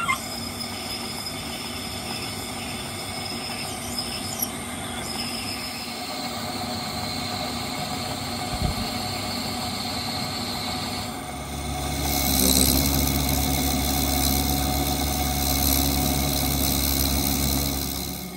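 Metal lathe running while it drills and then reams a brass bush. About 11 seconds in, the machine sound gets louder and takes on a steady low hum.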